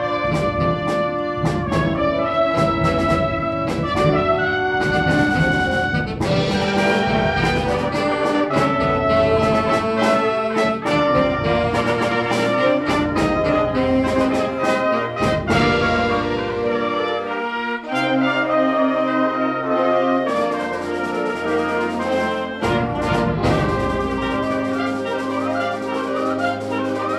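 Concert band playing, with brass to the fore over held chords and sharp percussion strikes. About two-thirds of the way through it eases to sustained chords over low notes, then the full band and percussion come back in.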